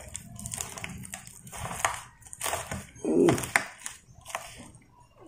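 Crispy deep-fried native chicken being torn apart by hand and eaten, giving irregular crackles of the fried skin and chewing close to the microphone. A short murmur from the eater comes about three seconds in.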